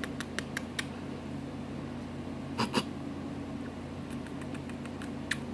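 Kisses pressed on a cat's head: short wet lip smacks, several in the first moment, a louder pair about two and a half seconds in and one more near the end, over a steady low hum.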